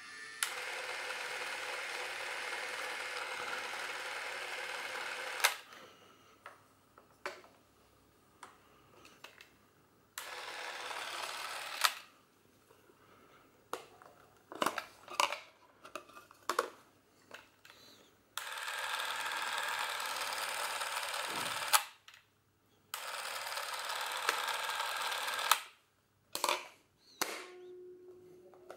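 Bauer S 204 XL Super 8 camera's film-drive motor running in four steady whirring runs, the first about five seconds long, each cut off with a click. Sharp clicks and knocks from handling the camera's switches fall between the runs.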